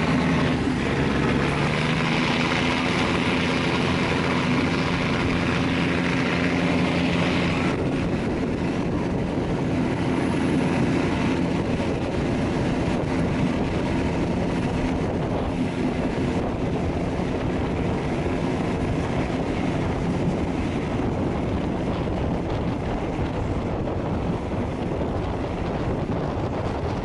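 A passenger train running along the line, heard from on board: a steady rumble of engine and wheels on the track, with a hiss that eases about eight seconds in.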